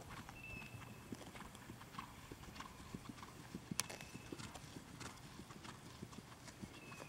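Faint, irregular hoofbeats of a chestnut Thoroughbred gelding ridden over grass and dirt, with one sharper click a little past halfway. A faint short high note recurs every few seconds.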